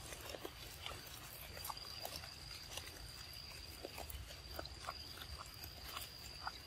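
Faint small clicks and sucking noises as a young macaque drinks juice through a juice-box straw, with a thin steady high tone underneath.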